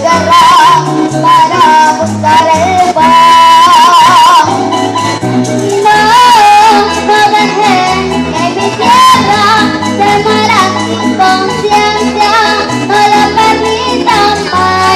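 A young girl singing a Venezuelan llanero song in entreverado rhythm, her voice wavering in vibrato on held notes, over a live backing band with a walking bass line.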